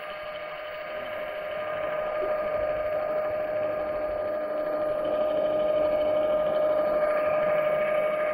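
AquaRobotMan MagicJet underwater scooter's electric motor and propeller running, a steady whine with one strong pitch that grows louder over the first two or three seconds.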